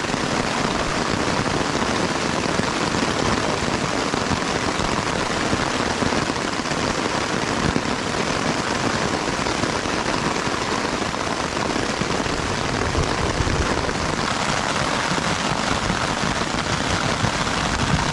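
Heavy thunderstorm rain falling steadily, with gusting wind buffeting underneath.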